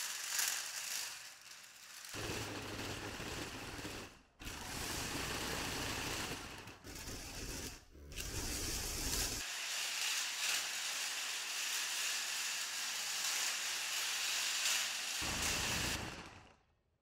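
Small plastic TT gear motors whirring as a mecanum-wheeled RC car drives, with the wheels' rollers rattling on a wooden floor. The sound comes in short takes with abrupt cuts between them.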